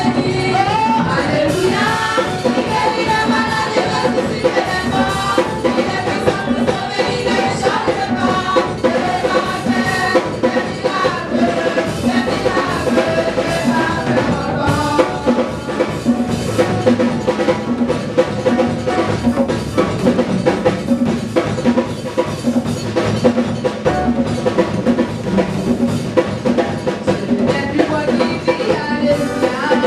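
Live gospel praise music: a group of women singing into microphones, amplified, over a drum kit keeping a steady beat.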